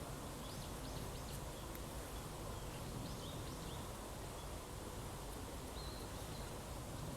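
Steady ambient background noise with a few short, high bird chirps scattered through it.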